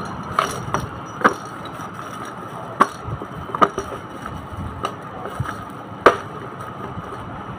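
Plastic parts of a baby walker knocking and clicking as they are handled: about seven short, sharp taps at uneven intervals, with the toy tray and a bagged rattle piece still in their plastic wrapping.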